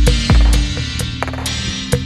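Electronic background music with a deep kick drum about twice a second and light percussion ticks; the kick drops out under a second in, leaving synth chords and the ticks.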